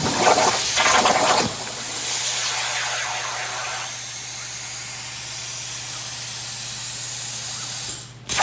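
CNC plasma cutter cutting 3/16-inch steel plate: a loud, steady hiss from the torch. The hiss is harsher for the first second and a half, and a low steady hum runs beneath it.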